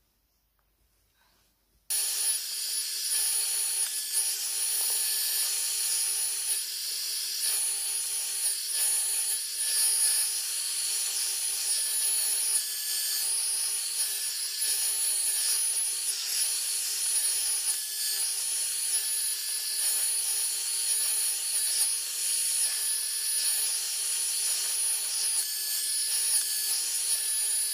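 Hand-held hair dryer switched on about two seconds in, then running steadily: a rush of air with a steady motor whine.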